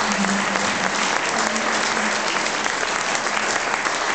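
A crowd of guests applauding steadily, many hands clapping at once.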